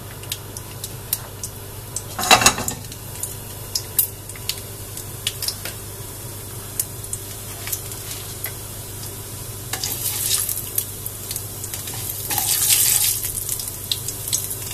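Mustard seeds and urad dal frying in hot peanut oil in a steel pan: a steady sizzle broken by many sharp pops as the mustard seeds splutter, with a louder burst about two seconds in. A wooden spatula stirs the pan near the end. This is the tempering stage, the oil hot enough for the seeds to crackle.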